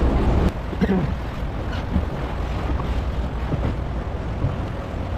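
Canal water lapping and splashing around a gondola, with wind buffeting the microphone; the wind rumble is heavier for the first half second.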